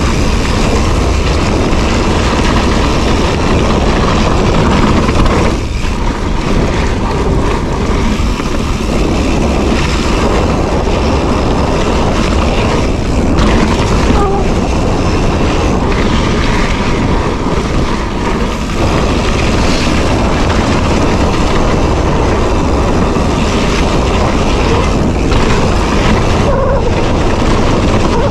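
Mountain bike rolling down a dirt singletrack: a steady, loud rush of wind buffeting the microphone mixed with the rumble of the tyres on the trail.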